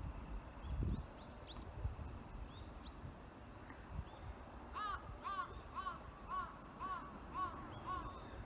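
Birds calling outdoors: a few faint, short rising high chirps, then from about halfway through a bird gives a run of about eight short, arched calls, about two a second.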